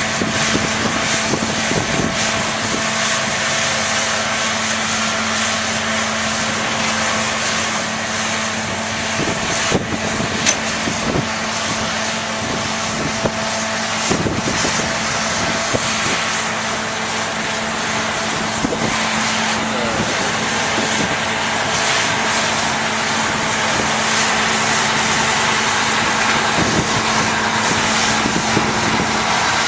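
Heavy diesel construction machinery working: a steady engine drone with a constant hum, broken now and then by short knocks.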